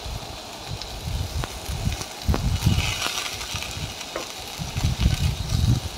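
Shredded pumpkin peel and potato strips, just added to hot vegetable oil in a kadai, sizzling, with scattered low thumps and a few clicks.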